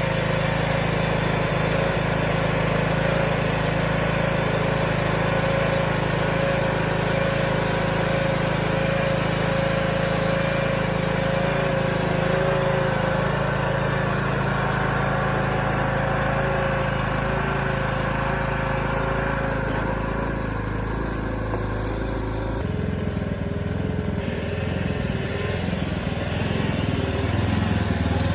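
Husqvarna riding mower's engine running steadily as the mower is driven down a trailer ramp and across the grass.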